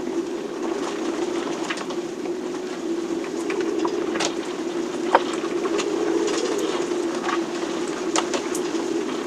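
Storm noise inside a sailboat's cabin: a steady low droning tone with scattered clicks and knocks, one sharper knock about five seconds in.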